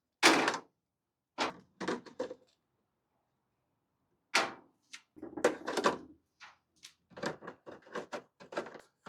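Handling noise: a series of irregular knocks and clunks as objects are moved and set down, with a pause in the middle and quicker, lighter knocks near the end.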